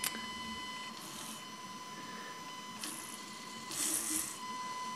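Small fischertechnik DC motor whining with a steady high tone while driven at low power, too little for it to work; it only runs at full power. The tone fades briefly about four seconds in, and a few short soft hissy rustles come and go.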